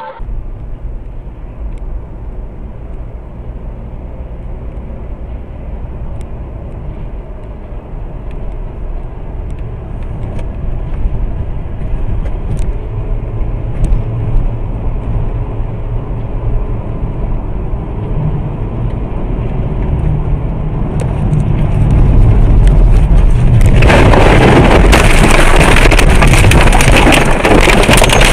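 Dashcam audio from inside a moving car: steady road and engine rumble that slowly grows louder. About 24 seconds in it turns into a loud, sustained roar of noise lasting several seconds as the car crashes.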